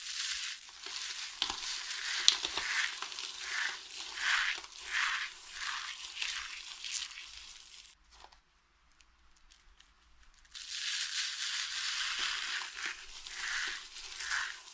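Dry soap being crushed, with a crisp crunching and crumbling in repeated pulses. It stops for about two seconds a little past halfway, then starts again.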